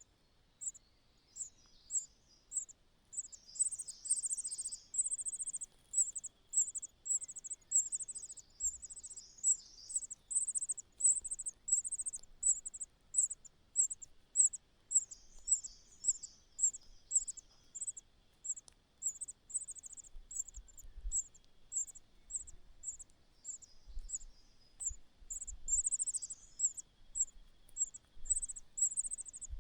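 Bird nestlings cheeping: short, high-pitched chirps repeating about twice a second, with patches of softer twittering among them.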